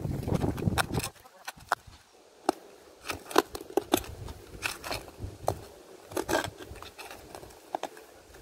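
Short spade digging into turf and soil: a string of irregular short crunching scrapes as the blade is pushed in and levered, after about a second of rustling as hands work loose soil.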